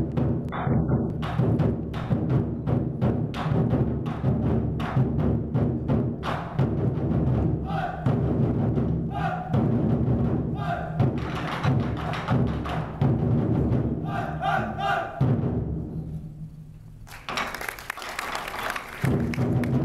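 An ensemble of large Chinese barrel drums played together in a fast, dense rhythm of strokes. The drumming falls quieter about sixteen seconds in, then comes back loud near the end.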